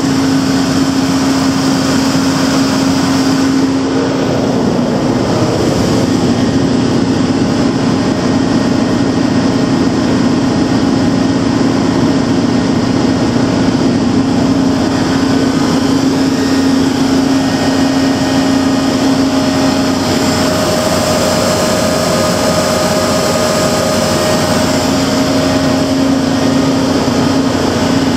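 Caterpillar 3126 inline-six diesel engine of a military surplus generator set running at a steady governed speed, loud and even, with a steady hum over it throughout.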